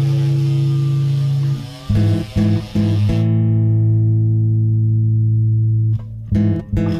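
Instrumental background music led by guitar and bass, with long held low notes that change every second or two.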